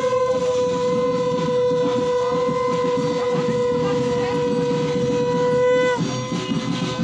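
A single long horn note, held steady for about six seconds and sagging slightly as it ends, over a rough low rumble.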